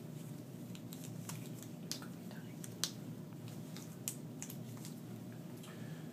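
Gloved hands stretching and tying a rubber band tourniquet around an upper arm: faint rustling with a few small sharp snaps and clicks, the clearest about two, three and four seconds in, over a steady low room hum.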